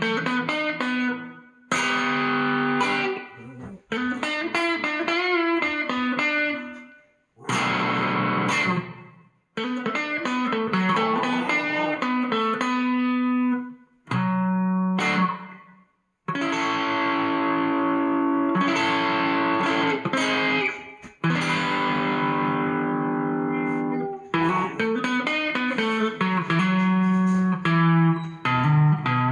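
Electric guitar played through a Line 6 modelling patch on the '58 Fender Bassman amp model with a distortion stomp, giving a crunchy classic-rock tone. Phrases of chords and single-note lines with string bends, broken by several short pauses.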